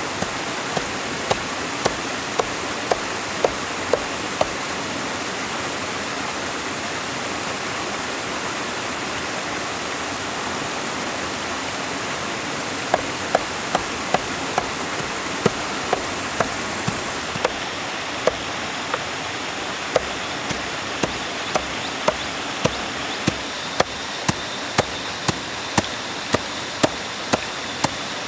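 Regular sharp knocks, about two a second, in a short run near the start and a longer run from about halfway on, over a steady hiss. A high, even whine runs beneath and drops to a lower pitch about two-thirds of the way through.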